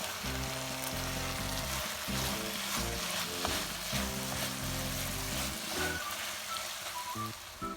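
Octopus stir-fry sizzling steadily in a hot pan, with background music playing over it.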